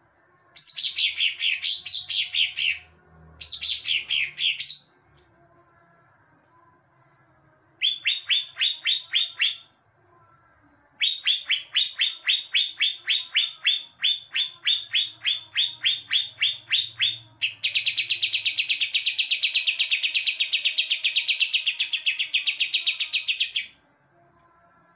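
Caged green leafbird (cucak ijo) singing in five bursts of rapid repeated high chips. The first two sweep downward, and the last is a fast, even trill about six seconds long. Its song is filled with learned tree-sparrow chatter (isian gereja).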